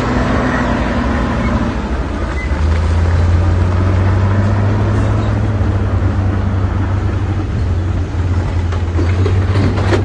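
Heavy diesel engine of a bulldozer running steadily with a deep, low drone, growing a little louder about two and a half seconds in.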